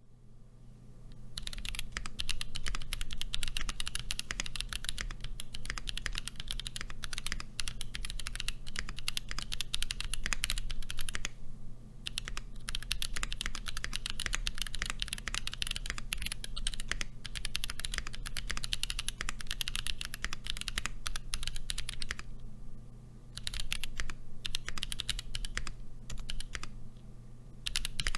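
Typing on a mechanical keyboard with Gazzew Boba U4T tactile switches, unmodded, in a Portico keyboard. Fast continuous keystrokes begin about a second and a half in and break off for brief pauses twice later on.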